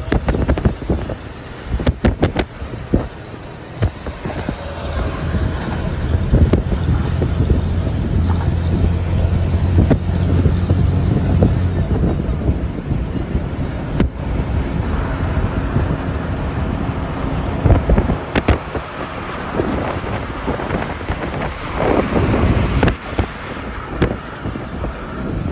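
Car travelling at highway speed: steady road noise with wind buffeting the microphone, and a low drone that swells for several seconds in the middle.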